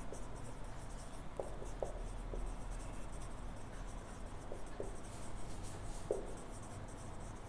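Marker pen writing on a whiteboard: faint scratching strokes with a few brief squeaks of the tip against the board.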